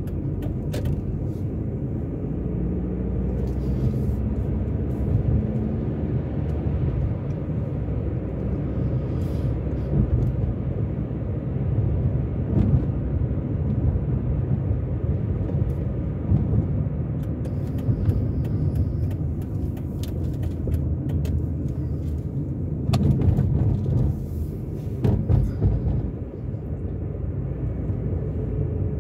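Car driving at low speed, heard from inside the cabin: a steady low rumble of engine and tyre noise, with a few brief knocks or clicks near the end.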